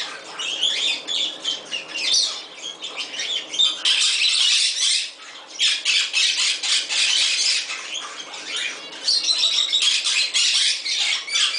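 Moluccan cockatoo squawking: loud, harsh screeches repeated in runs, with a short break about five seconds in.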